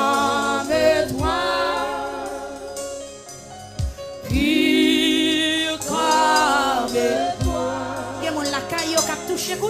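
A gospel worship song sung by a church congregation and singers, with long held notes that waver in pitch, over a musical backing with a few low beats.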